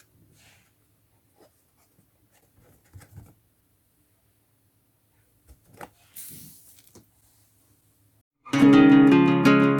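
Faint handling sounds of the toy box being opened: a few light taps and a short rustle of packaging. About eight and a half seconds in, loud background music with plucked acoustic guitar starts.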